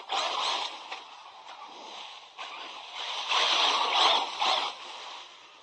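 A 1:8-scale RC truck's tyres spinning and spraying gravel and dead leaves as it accelerates and slides, in two loud rushes: one at the start and a longer one about three seconds in, trailing off near the end.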